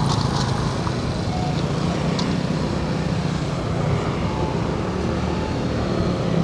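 Motor scooter engine running as it rides across the railway level crossing and pulls away, over steady road traffic noise.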